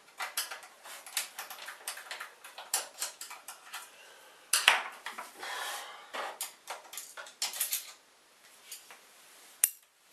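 Irregular clicks, knocks and clatter of hard plastic and metal as an inkjet printer's casing and parts are handled and screwdrivers are moved about on the bench, with a louder clatter about halfway through and a sharp click near the end.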